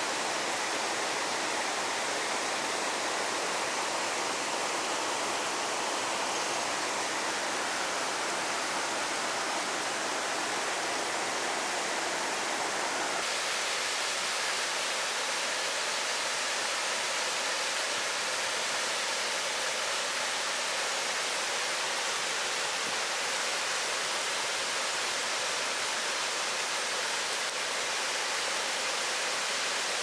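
Steady rush of water in a mountain gorge stream. About 13 seconds in, the sound changes abruptly and much of its deeper part drops away.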